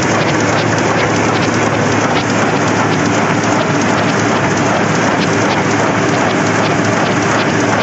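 Heidelberg Speedmaster XL 105 six-colour sheetfed offset press running: a loud, steady, dense mechanical rattle with a constant low hum underneath.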